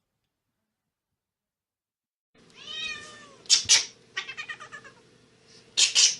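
A cat meowing several times, starting about two seconds in after silence, with two loud, short noisy bursts between the calls over a steady background hum.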